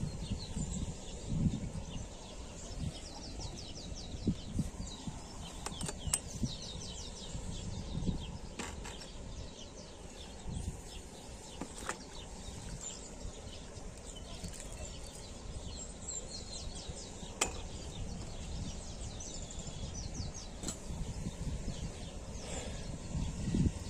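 Outdoor ambience: wind buffeting the microphone in uneven gusts, with faint bird chirps now and then and a few sharp clicks.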